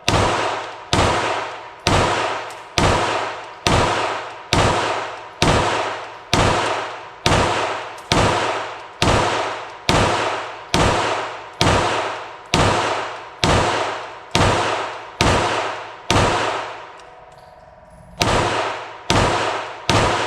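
9mm Glock-pattern pistol in a META Tactical MX-1 chassis firing steady semi-automatic shots, about one a second, each ringing out before the next. There is a pause of about two seconds near the end, then the shots resume.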